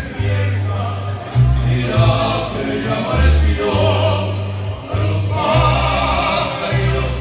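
Live band music: several men's voices singing over a deep bass line that steps from note to note.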